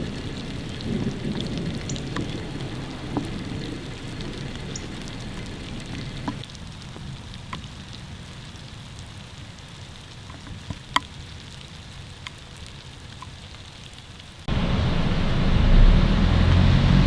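Rain falling, with scattered sharp drips, growing quieter over the first several seconds. Near the end a much louder low rumble cuts in abruptly.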